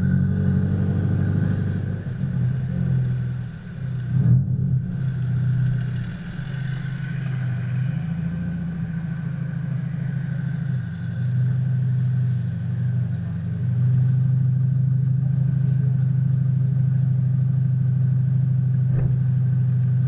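Subaru Impreza WRX STI's turbocharged flat-four boxer engine through an A.R.T. titanium aftermarket exhaust, running low and uneven as the car rolls to a stop, then settling into a steady idle. The sound is muffled by the camera's waterproof housing, and a short knock comes about four seconds in.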